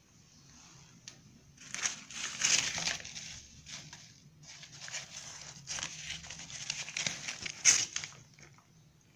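Old newspaper crinkling and rustling on a debris-strewn floor, in two spells of a few seconds each, with a sharp crackle near the end.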